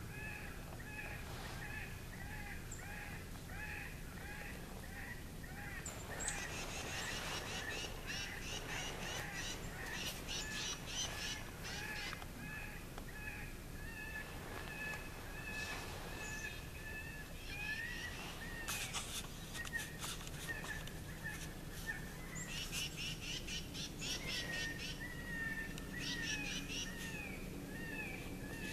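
Electronic predator call playing a rabbit-in-distress recording: repeated wailing cries about two a second, giving way to longer drawn-out wails, with several bouts of rapid, shrill squealing over them.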